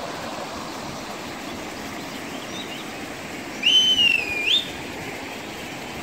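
Small waterfall on a forest stream, rushing steadily into a rock pool. About three and a half seconds in, one clear, high whistled note sounds for about a second; it rises, holds, dips, then rises again at the end.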